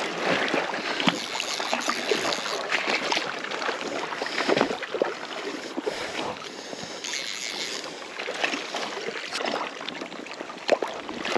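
Shallow river water running and sloshing around a wading angler, with a few brief splashes.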